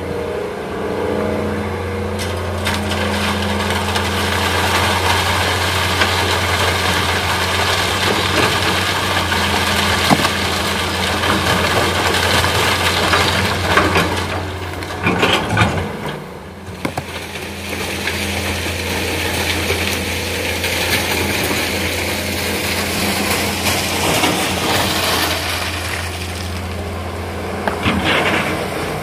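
Heavy diesel engine of an excavator running steadily under load, with scraping and clattering as sand and stone are loaded. It swells louder twice, about halfway through and near the end.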